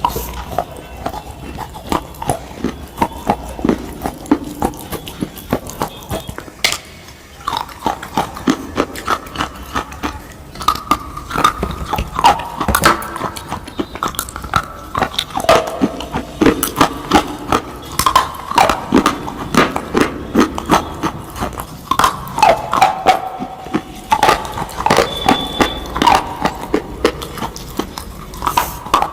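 Close-up eating sounds: rapid crunching bites, a couple of sharp crunches a second, mixed with swallowing.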